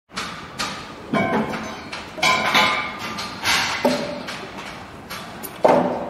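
Construction site sound: irregular knocks and clanks, about eight, some of them ringing briefly, the loudest near the end.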